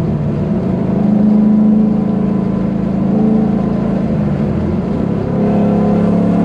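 LS3 V8 in a Nissan 350Z running under load while driving. Its note drops just at the start and runs steady, then climbs again a little after five seconds as the revs change.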